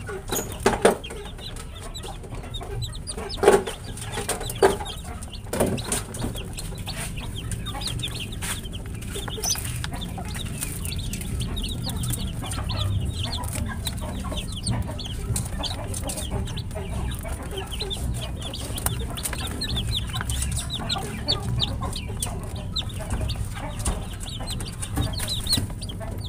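A brood of baby chicks peeping nonstop, many short high cheeps overlapping. A few louder knocks come in the first six seconds, over a low steady rumble.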